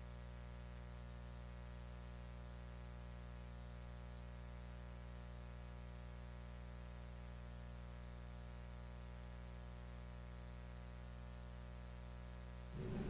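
Faint, steady electrical mains hum with a buzz of many evenly spaced overtones. Near the end, loud music cuts in abruptly.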